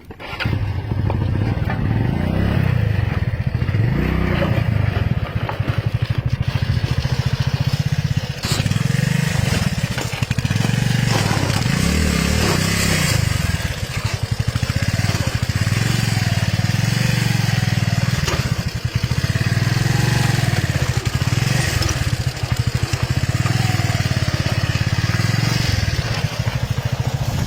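Motorcycle engine running under load on a rough off-road climb, its note rising and falling with the throttle, over a constant rushing noise.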